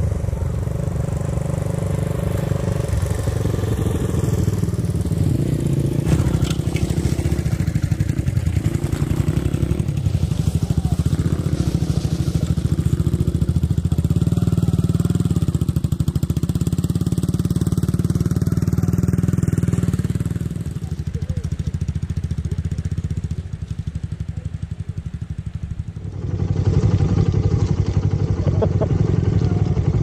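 Small 100cc single-cylinder motorcycle engines (a Honda Ape100 and an SL100) running as the bikes ride along, a steady low engine sound. It drops in level a little after two-thirds in and comes back louder near the end.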